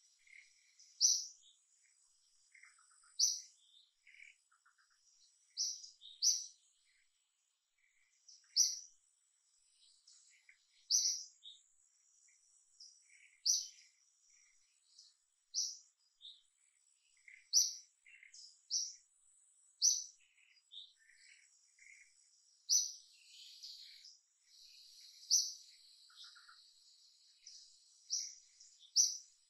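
Outdoor birdsong: short, sharp, high chirps repeated every two seconds or so, with fainter scattered chirps between them, over a faint steady high insect drone.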